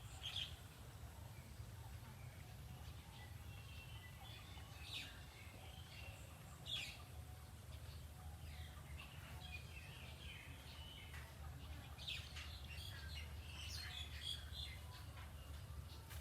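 Wild birds chirping, with short high calls scattered throughout and growing busier near the end, over a steady low hum.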